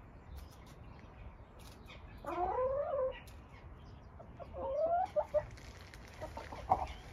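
Domestic hens calling: two drawn-out, wavering calls a couple of seconds apart, with light clicks of scratching and pecking in between.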